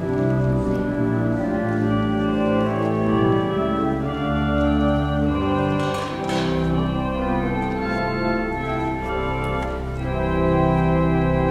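Church organ playing held chords that change step by step, with a moving bass line.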